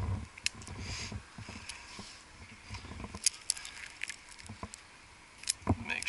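A tree climber's gear and handling noise: scattered metal clicks and clinks of carabiners and rigging, rustling of rope and pine boughs, and a few dull knocks.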